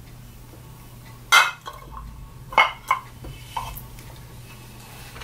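Glass wine bottles clinking and knocking against each other about four times as they are gathered up in the arms.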